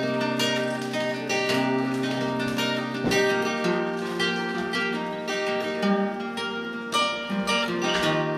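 Solo acoustic guitar playing an instrumental passage, single plucked notes ringing over held bass notes.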